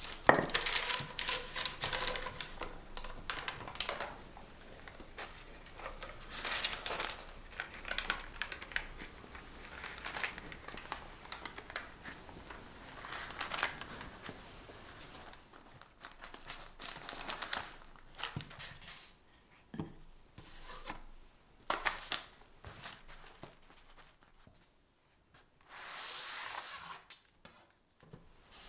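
Parchment paper rustling and crinkling in irregular bursts as it is lifted and rolled around a frosted sponge cake sheet, with quieter gaps in the second half and a longer rustle near the end.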